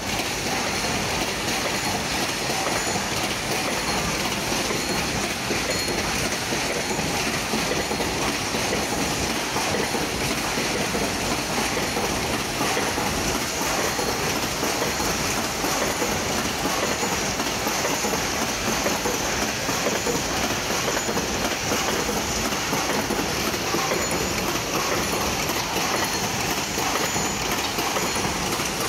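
Hinge joint field fence machine running: a steady, dense mechanical clatter that goes on without a break.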